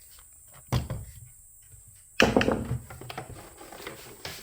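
Knocks and clatter from handling an espresso machine's parts: a short knock, then a louder one about two seconds in that trails off in a brief scrape, with a few light clicks.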